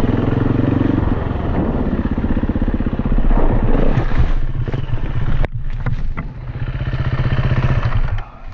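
KTM dirt bike's single-cylinder engine running at low revs with a steady chugging as it is ridden slowly down a steep trail on a flat front tire. There is one sharp click about five and a half seconds in, and the engine sound drops away near the end as the bike goes over into the brush.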